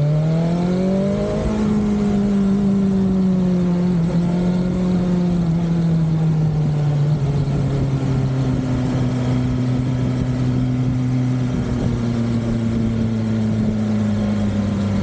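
BMW S1000XR motorcycle's inline-four engine under way. It revs up in pitch over the first second and a half, then runs at a steady pitch that slowly eases down.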